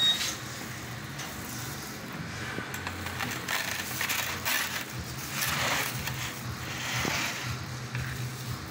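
Metal spatula scraping and clicking against metal pizza pans, screens and wooden pizza boards as finished pizzas are handled. Two longer scrapes come in the second half, over a steady low kitchen hum.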